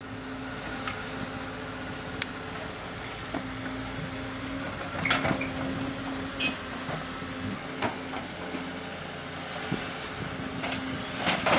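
Excavator engine running steadily at one pitch, with a few short knocks from the machine working, the loudest about five seconds in and near the end.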